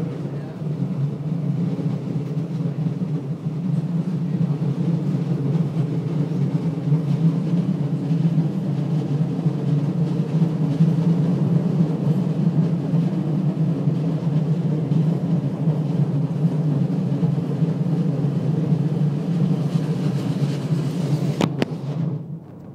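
Steady low running rumble inside a Karlsruhe Stadtbahn light-rail car as it travels along the track. Near the end there is a sharp click, and the noise then drops much quieter.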